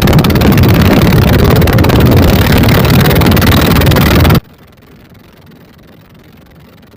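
Twin 24 HP dompeng engines driving a wooden boat at speed: a loud, steady engine and hull noise with wind on the microphone. The sound cuts off abruptly about four and a half seconds in, leaving only a faint hiss.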